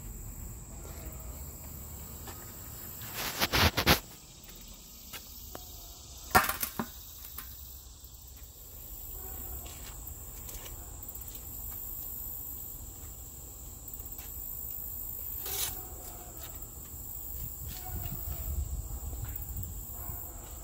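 Steady high-pitched insect drone, with a cluster of loud sudden knocks about three to four seconds in, another sharp knock about six and a half seconds in, and a fainter one later.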